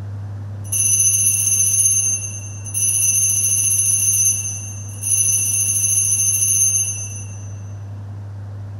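Altar bells shaken three times at the elevation of the host during the consecration. Each ring is a bright jingling of several high tones lasting about two seconds, over a steady low hum.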